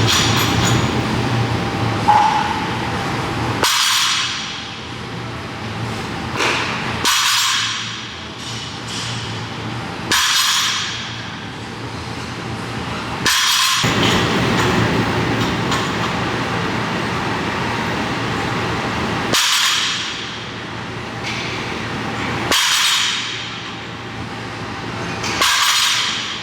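Gym background noise with scattered metallic clinks, changing abruptly every few seconds as the sound jumps between cuts.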